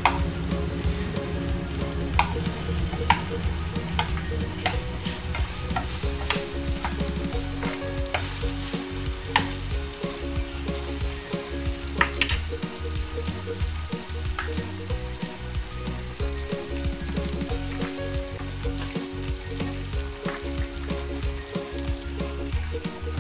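Meatballs sizzling as they fry in a nonstick pan, with a metal spoon clinking and scraping against the pan as they are turned, the clinks thickest in the first half.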